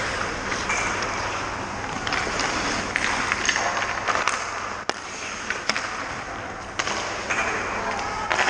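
Ice hockey skate blades scraping and carving the ice close by, in repeated hissing strokes. A few sharp clacks stand out about four to six seconds in.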